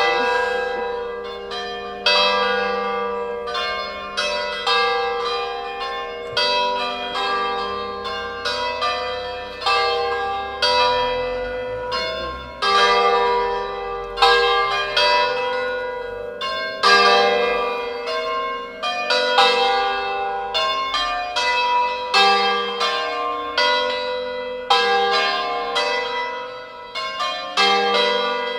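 Church bells from a five-bell post-war Crespi of Crema ring in G, rung entirely by hand ropes, swinging full circle together in an Italian 'distesa' peal. Their strokes fall in an uneven, overlapping sequence, each clang ringing on under the next.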